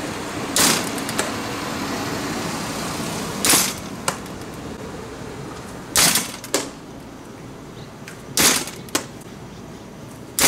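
Baseball smacking into the leather pocket of a 1950s Wilson A2151 glove, caught four times about two and a half seconds apart, each smack followed by a lighter click.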